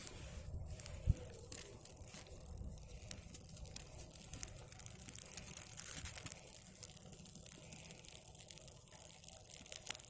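Dry birch bark and thin birch twigs crackling and rustling in irregular small clicks, with one sharper knock about a second in, over a low rumble.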